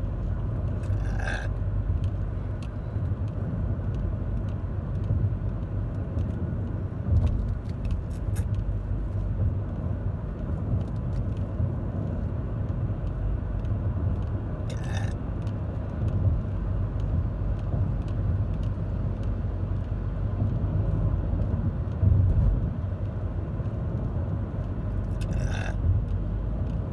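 Steady low road rumble inside a moving car's cabin, with three brief short sounds about a second in, near the middle and near the end.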